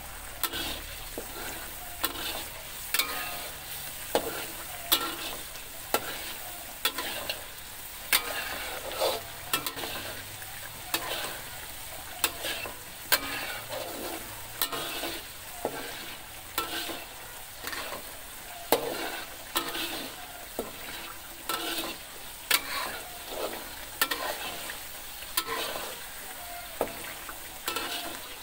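Ground chili spice paste sizzling as it fries in oil in a metal wok. A metal spatula scrapes and knocks against the wok about once a second as the paste is stirred.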